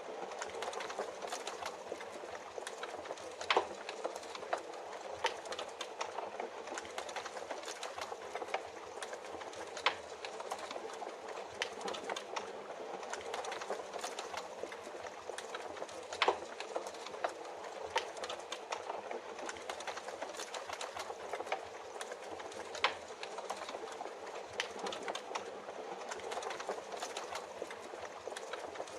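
Wood fire crackling, with many small sharp clicks and a few louder pops, over a steady hiss of rain.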